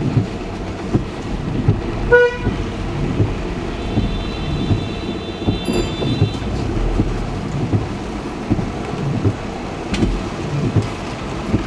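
Car driving in heavy rain, with a continuous low rumble and irregular thumps of rain and road noise. A car horn gives a short honk about two seconds in, and a higher-pitched horn sounds for about two and a half seconds from about four seconds in.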